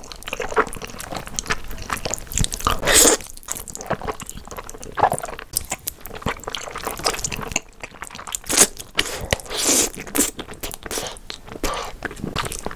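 Close-miked eating of jajangmyeon (Korean black bean noodles): wet slurping and chewing of thick sauced noodles in irregular bursts, the loudest at about three, five, eight and a half and ten seconds in.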